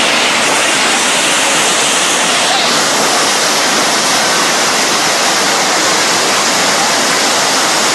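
Floodwater rushing, a loud steady wash of noise with no let-up; its hiss changes slightly about two and a half seconds in.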